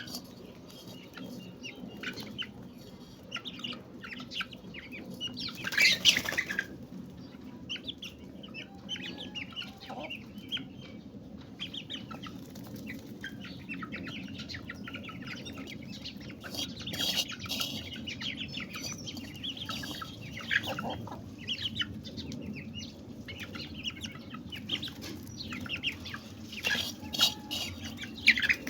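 Chickens clucking and chirping with occasional wing flapping, many short calls scattered throughout, over a steady low background hum.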